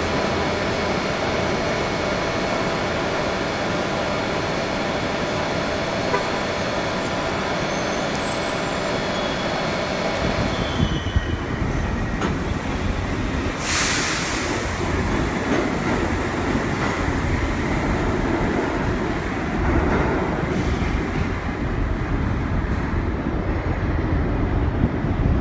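A New York City subway train running on elevated steel track, a steady rumbling noise. About ten seconds in, this gives way to an R62A subway train moving through an underground station, a heavier low rumble with a brief sharp hiss about halfway through.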